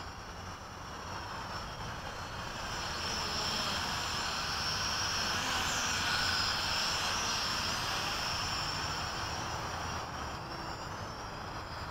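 Hubsan H502E quadcopter's motors and propellers whining with several high tones as the drone flies in close, growing louder to a peak about halfway through and then easing off.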